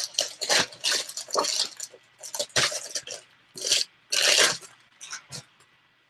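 Packaging of a mailed parcel being handled and pulled at by hand, with irregular bursts of crinkling and rustling that stop a little before the end.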